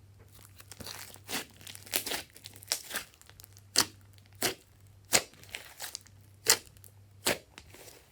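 Slime being squeezed and pressed by hand, giving irregular sharp pops and crackles as trapped air bursts out, about a dozen over the stretch.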